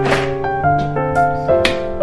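Background music: a keyboard melody of held notes that change about every half second, with a few light percussive taps.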